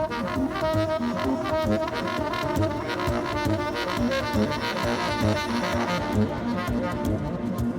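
Music: a dense layer of rapidly shifting pitched tones over a steady low pulse, thinning out about six seconds in.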